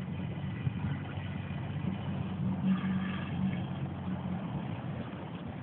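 Outboard motor of an inflatable coaching boat running steadily at low speed, a little louder briefly about halfway through.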